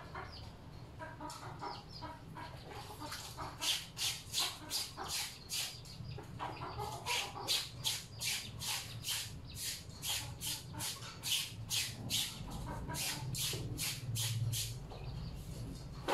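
Clothes being scrubbed by hand in a washtub: a fast, even run of scrubbing strokes, about three a second, starting a few seconds in and stopping near the end.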